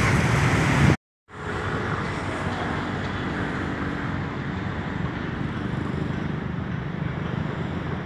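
Motorbike and car traffic passing on a city bridge, which cuts off suddenly about a second in and gives way to a steady, quieter hum of distant city traffic.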